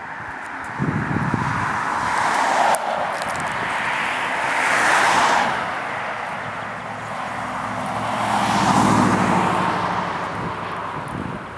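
Road traffic passing by: two vehicles in turn, each swelling up and fading away, the second with a low engine note under its tyre noise.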